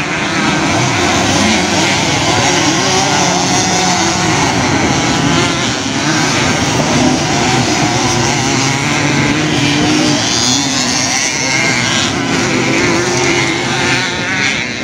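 Several vintage motocross bikes racing, their engines running hard at once, the pitch wavering up and down as riders rev and back off.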